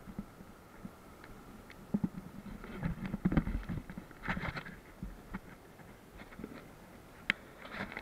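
Irregular knocks, rubbing and one sharp click from handling on an inflatable rubber raft, over a faint steady wash of river water. The knocks bunch together a couple of seconds in, and the click comes near the end.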